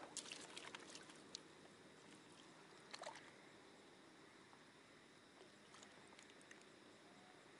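Near silence with faint water sounds, with a few small sharp ticks in the first second and again about three seconds in.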